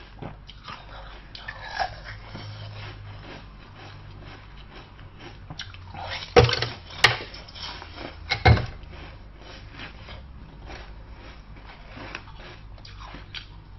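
Close-up eating sounds: a person biting into and chewing soft food, with wet smacking and clicking mouth sounds throughout. A few sharper, louder bites come about six and a half and eight and a half seconds in.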